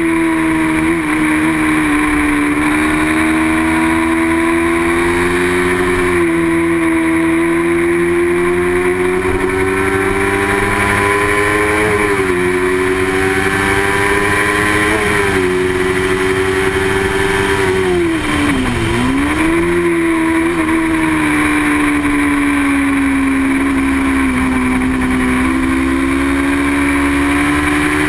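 Small-displacement race motorcycle engine held at high revs, its pitch climbing slowly through the gears. It dips briefly twice, about 12 and 15 seconds in, and drops sharply near 19 seconds, as when braking and downshifting into a corner, before winding back up.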